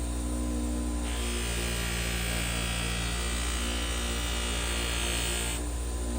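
Old bench grinder fitted with a buffing wheel running with a steady motor hum; from about a second in until near the end a higher hiss joins it as a knife blade is held against the spinning wheel and polished with buffing compound.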